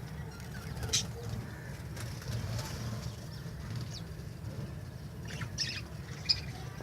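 Budgerigars in a breeding colony: brief wing flutters and short chirps, a sharp one about a second in and a cluster near the end, over a low steady rumble.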